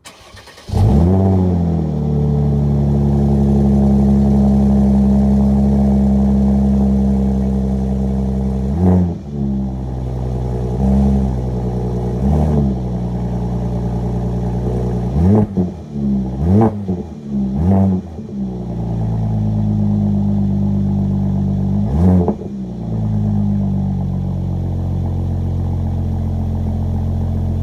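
Cold start of a Mercedes-AMG C43 (C450) 3.0-litre twin-turbo V6 through a resonator-delete high-flow AMG exhaust: a brief crank, the engine catches with a rev flare, then holds a fast cold idle. Through the middle come a series of short throttle blips, and near the end the idle settles a little lower.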